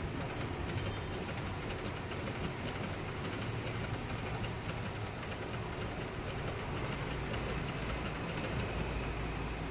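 Electric sewing machine running steadily, a continuous low motor hum with a fast, even rattle of fine ticks from the stitching mechanism.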